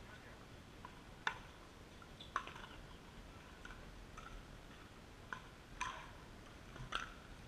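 Pickleball rally: about five sharp pops at irregular intervals as paddles strike the hollow plastic ball and it bounces on the hard court.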